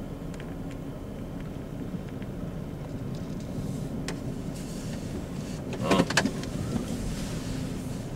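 A car's engine idling, heard from inside the stopped car as a steady low hum. About six seconds in there is a brief loud burst of clicks and rattles inside the cabin.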